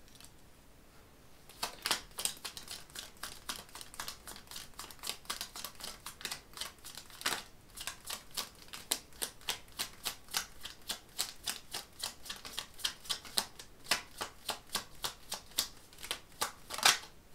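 A tarot deck being shuffled by hand: a fast, uneven run of light card clicks and slaps, about three to four a second, starting about a second and a half in.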